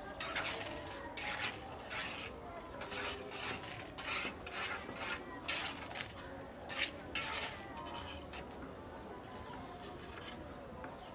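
Repeated scraping and rasping strokes of a hand tool on a hard, gritty surface, about one or two a second and irregular, thinning out after about seven seconds.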